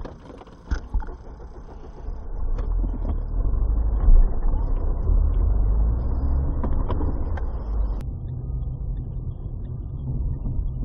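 Steady low rumble of a Mercedes-Benz car's engine and tyres as heard from inside the cabin while driving, with a few clicks in the first second. About eight seconds in, the sound cuts abruptly to a different car's steady low drone.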